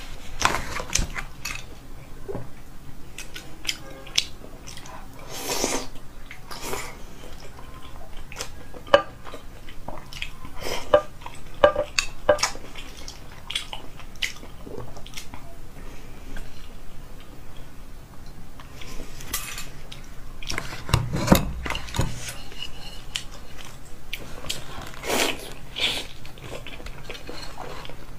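Chopsticks clicking and scraping against a pot and a small glass dipping bowl, with chewing of braised pork belly in between. The clicks come irregularly, with one heavier knock about three-quarters of the way through.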